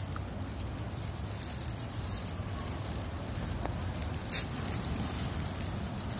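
Wind rumbling on a phone's microphone, with crackle and a single sharp click a little over four seconds in.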